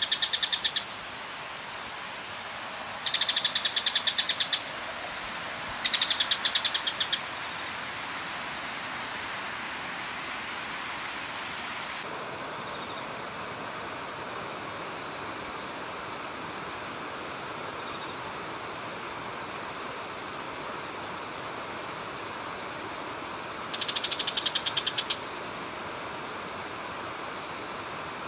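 A high, rapid trilling call, each trill about a second and a half of fast even pulses, comes four times over a steady high-pitched whine and an even rush of river water.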